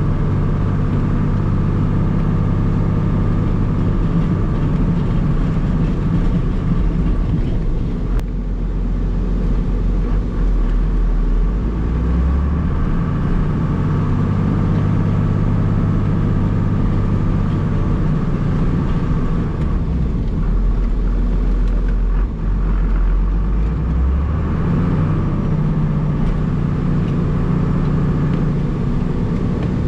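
1994 Dodge Ram's 5.9-litre 12-valve Cummins inline-six turbo diesel running, heard from inside the cab while plowing a driveway. Its pitch shifts up and down several times as the truck moves back and forth.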